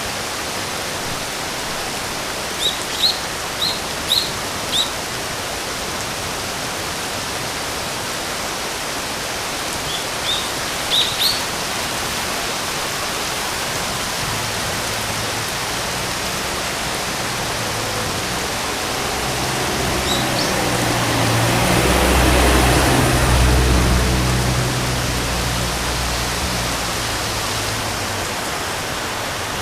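Steady hiss of rain, with a small bird giving short high chirps: about five in a row a few seconds in, four more around ten seconds in, and a couple near twenty seconds. In the second half a low rumble swells, peaks and fades away.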